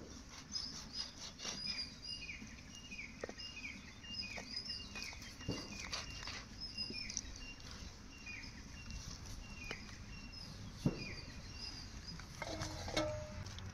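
Repeated short, high-pitched animal calls, each falling in pitch, coming every half second or so for most of the stretch, with a few sharp knocks, the loudest about eleven seconds in.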